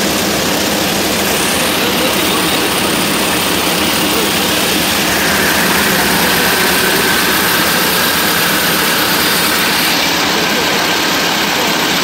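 Coaxial cable braiding machine running at speed: a loud, steady mechanical running noise from its wire bobbin carriers and drive.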